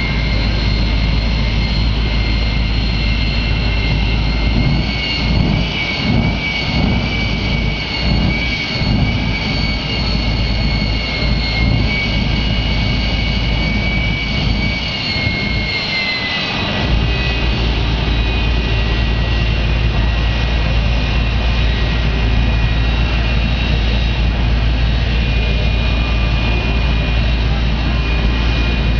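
Jet truck's turbine engine running at the starting line: a loud, steady jet whine over a low rumble. About halfway through, the whine drops slightly in pitch and then holds.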